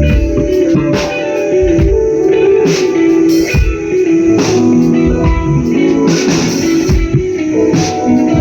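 Guitar playing sustained notes, with scattered drum hits, as a band runs through a sound check.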